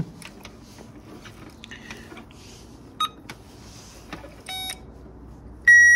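Faint clicks of probes and wiring being handled, a short buzzing beep, then near the end a loud, steady, high beep from an electrical circuit tester touching a wire: it signals that power is present at that point.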